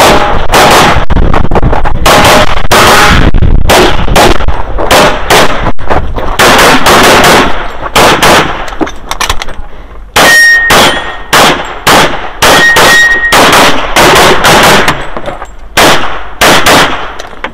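Rapid strings of handgun shots fired through a USPSA course of fire, with short pauses between bursts. After a couple of shots about ten and thirteen seconds in, a short metallic ring follows as steel targets are hit.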